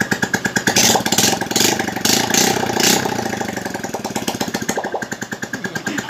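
Honda Absolute Revo's 110 cc single-cylinder four-stroke engine running with no exhaust pipe fitted, a loud open-port idle of rapid, even firing pulses. Between about one and three seconds in it is blipped several times, then settles back to a steady idle.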